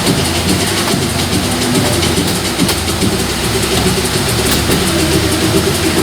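Tour tram's engine running steadily while it stands at a stop, a low hum with a constant hiss over it.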